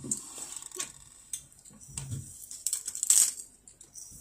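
Mealtime eating sounds: a child chewing, with light clicks and taps of chopsticks and dishes, the sharpest click about three seconds in.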